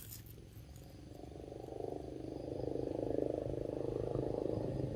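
Long-tailed macaque making a low, rough, rapidly pulsing croaky sound over a mango, starting about a second in and growing louder toward the end.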